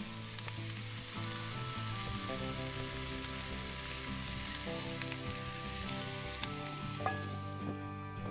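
Chicken pies and potatoes sizzling in an open cast-iron Dutch oven over a campfire, a steady hiss that stops sharply near the end as the coal-topped lid goes back on. Background music with held notes plays underneath.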